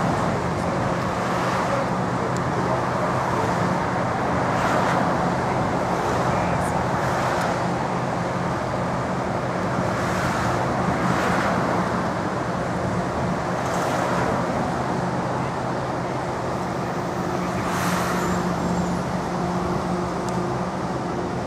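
City street traffic: a steady low engine hum from idling or slow-moving vehicles, with cars and a transit bus passing in several swells.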